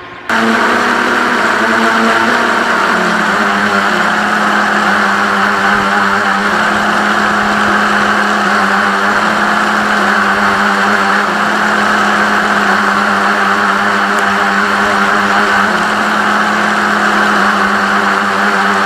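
Reely Wavebreaker RC speedboat's motor running steadily at speed, with water rushing past the hull; it kicks in abruptly just after the start and holds an even pitch.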